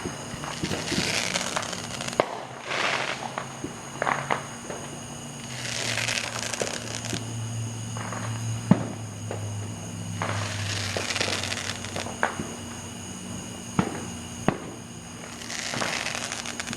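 Fireworks going off: several hissing rushes about a second long, with scattered sharp pops and cracks between them.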